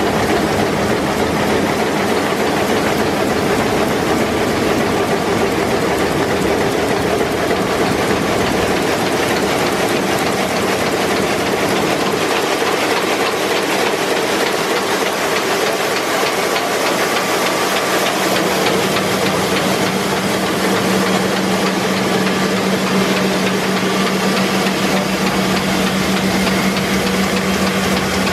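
Heidelberg Speedmaster SM 52 five-unit sheetfed offset press running, a loud steady mechanical noise with a low hum that grows stronger about two-thirds of the way through.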